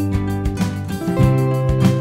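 Background music played on guitar, with a chord change about a second in.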